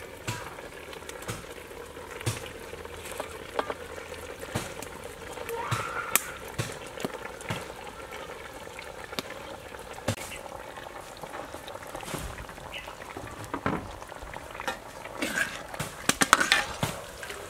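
Pork simmering in a dark sauce in an aluminium pot, with scattered clicks and knocks as peeled quail eggs are tipped in from a tray and stirred with a metal ladle. The knocks come thicker near the end.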